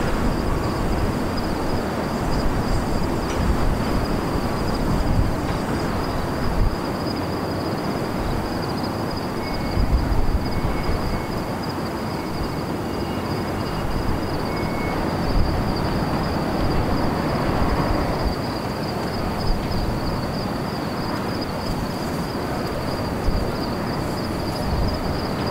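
Wind buffeting an outdoor microphone: an uneven low rumble that swells in gusts, with a steady high-pitched whine running under it.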